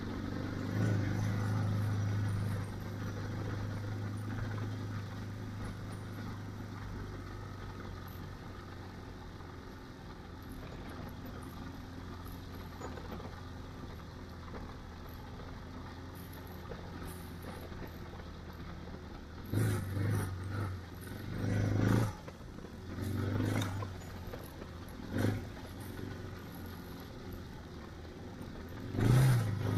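Adventure motorcycle's engine running steadily under way on a gravel road, with some rattle and clatter. It is louder for a couple of seconds near the start, and there is a series of short, louder bursts in the last ten seconds.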